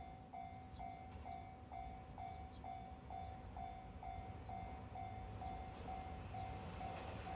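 Japanese level-crossing alarm bell ringing its repeating electronic ding, about two strokes a second. Near the end the noise of an approaching train grows underneath it.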